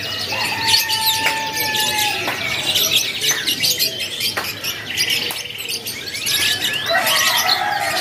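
Many caged domestic canaries singing and chirping at once in overlapping trills, with one held whistled note in the first two seconds and a few sharp clicks. These are canaries already in full song.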